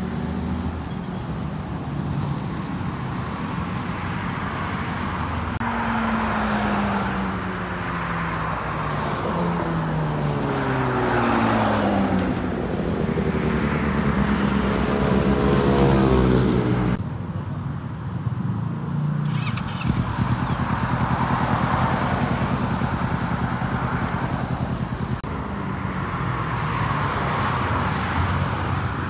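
Engines of passing motor vehicles over a steady traffic rumble, several engine notes sliding slowly down in pitch as they go by. The sound drops and changes abruptly about 17 seconds in.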